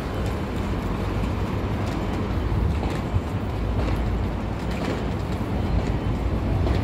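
City street traffic noise: a steady low rumble of vehicles.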